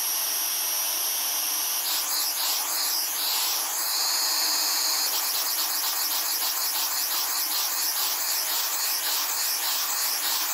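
3D-printed nutating-disk air engine starting up on low-pressure compressed air: a steady hiss of air, with the engine beginning to turn about two seconds in and settling into a fast, even pulsing from about five seconds in as the disk nutates and the propeller spins.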